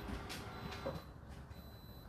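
Whirlpool WFO3P33DLXUK dishwasher in its 65 °C main wash: water swishing and splashing inside the closed tub as the wash runs, with a few splash strokes in the first second, then quieter from about a second in.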